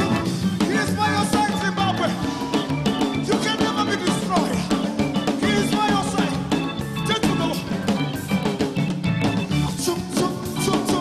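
Upbeat live gospel band music: drum kit, electric guitars and keyboards playing with a steady beat, with singing over it.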